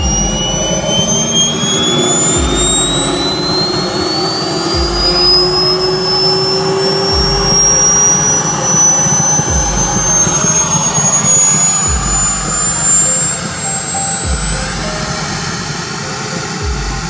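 Kingtech K-130 G4 model turbine jet engine running with a high whine that climbs steadily in pitch as the turbine spools up.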